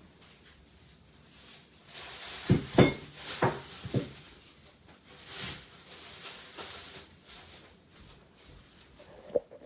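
Four or five sharp knocks and clanks about two to four seconds in, the loudest with a metallic ring, as of metal debris being handled and dropped, followed by softer scraping and shuffling and one more click near the end.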